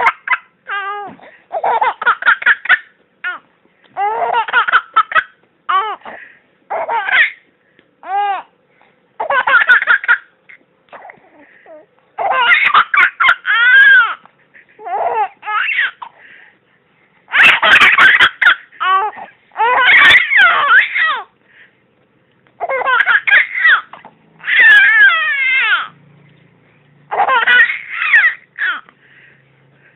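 Laughter in repeated high-pitched bursts, a dozen or so, with short pauses between, rising and falling in pitch; the loudest bursts come about halfway through.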